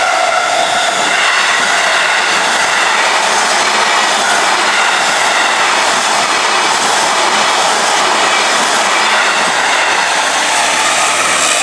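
Keikyu Main Line train passing close by at a level crossing: a steady, loud running noise of wheels on rails.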